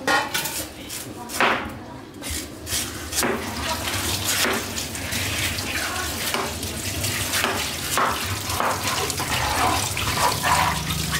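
Tap water running into a stainless-steel sink, splashing over a peeled bamboo shoot as it is rinsed. In the first few seconds there are several sharp knocks of a cleaver chopping into bamboo shoot on a wooden cutting board.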